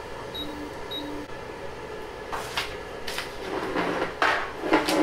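Two short beeps from the Anycubic Photon resin 3D printer's touchscreen as it is tapped, then a run of clicks, knocks and rustling as the printer is handled, loudest near the end.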